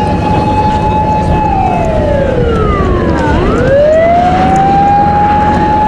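Fire truck siren wailing loudly: one tone holds high, slides down over about two seconds, then winds back up to the same pitch and holds.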